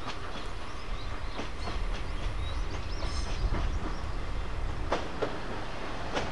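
Diesel railcar rolling slowly toward the platform: a low engine and wheel rumble that swells midway, with sharp clicks of the wheels over rail joints, two of them about five seconds in.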